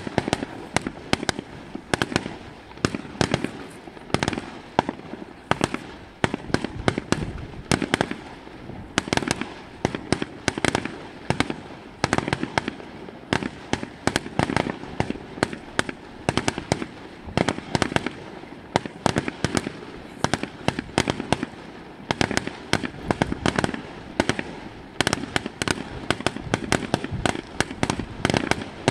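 Fireworks display: aerial shells bursting one after another in quick succession, a dense, unbroken run of sharp bangs, often several a second.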